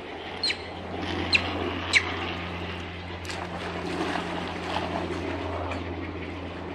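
Water splashing as a young Japanese macaque jumps into a shallow pool and thrashes about, loudest about four seconds in, over a steady low hum. Three short, sharp high chirps that fall in pitch come in the first two seconds.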